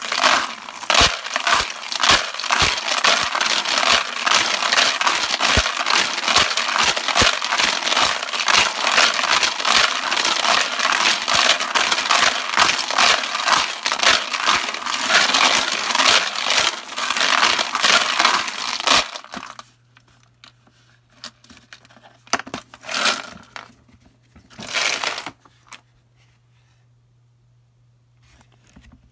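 Brass rifle cartridge cases and polishing media rattling and clinking as they tumble in a spinning plastic rotary media separator basket, sifting the media off the cases. The rattle stops about two-thirds of the way through, leaving a faint low hum and a few light clinks.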